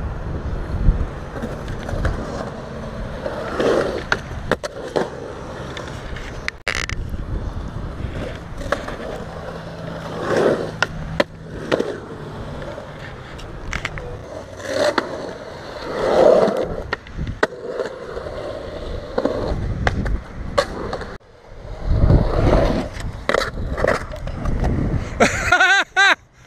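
Skateboard wheels rolling and carving over concrete: a steady rumble that swells and fades, broken by frequent sharp clacks and knocks of the board.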